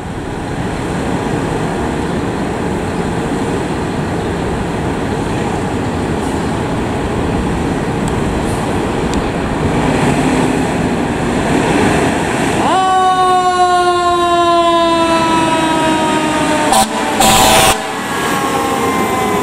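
Fire engine's diesel engine running with a steady rumble. About twelve seconds in, a mechanical Federal Q siren winds up sharply and then coasts slowly down in pitch. Near the end comes a brief, very loud blast, the loudest sound in the stretch.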